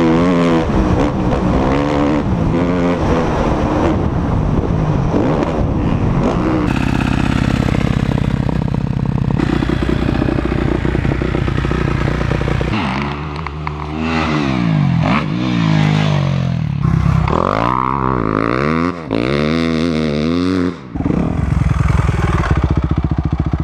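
Dirt bike engines: a motocross bike ridden hard, its engine note climbing and dropping through the gears, then a run of quick throttle revs about once a second, each rising and falling, with brief cut-outs.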